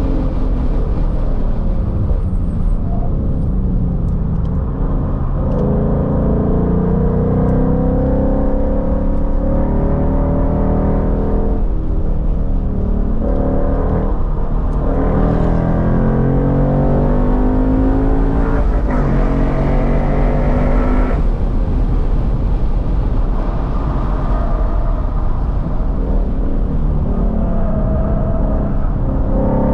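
Ford Mustang engine at full track pace, heard from inside the cabin. The revs climb steadily under acceleration, then drop off suddenly. This happens twice, and the pitch settles lower near the end.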